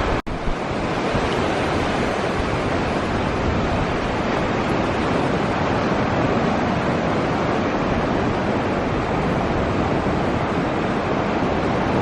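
Steady rushing of ocean surf, with wind buffeting the microphone.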